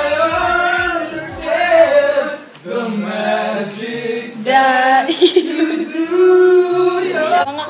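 Young voices singing without instruments, with long held notes.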